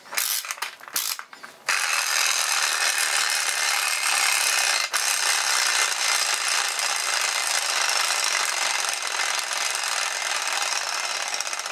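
3D-printed plastic clockwork motor: a few clicks of the ratchet as its key is turned, then at about two seconds in the spring is let go and the plastic gear train runs down with a steady mechanical whir.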